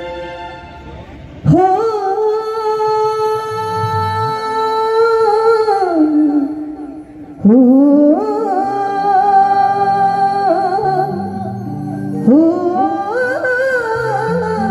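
A woman's voice singing long, held wordless notes in an Uttarakhandi folk style, three phrases each sliding up into the note and then held for several seconds, over a soft low instrumental accompaniment.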